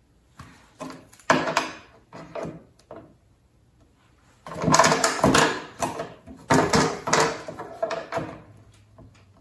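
A paperback book and a small clear acrylic book stand being handled on a tabletop: several short knocks and scrapes, then two longer, louder spells of clattering in the second half.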